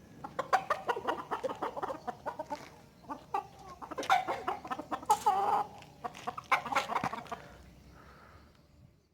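Chickens clucking in a run of short calls, with one longer call about five seconds in, fading out near the end.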